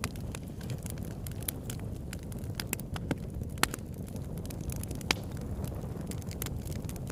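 Wood bonfire burning: a steady low rumble of flames under frequent sharp crackles and pops from the burning wood, with a few louder pops about midway.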